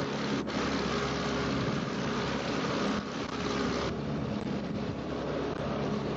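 Boat engine running steadily, with wind on the microphone and water rushing past. The noise changes abruptly about three seconds in and again a second later.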